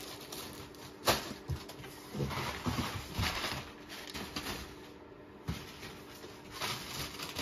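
Plastic packaging bags rustling and crinkling as items are handled, with a sharp knock about a second in and a soft thump later.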